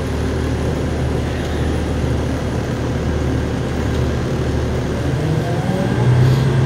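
Inside the cabin of a 2007 New Flyer D40LF city bus, its 8.9-litre Cummins ISL diesel running with a steady low drone; about six seconds in the engine note rises in pitch and grows louder as the bus accelerates.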